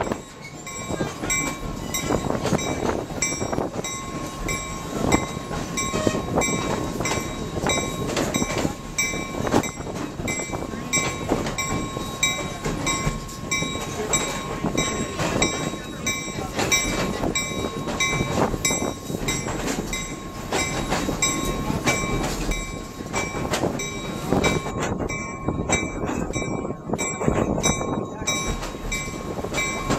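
Passenger train running along the track, heard from an open-sided car: a steady rumble of the cars with wheels clicking irregularly over the rail joints.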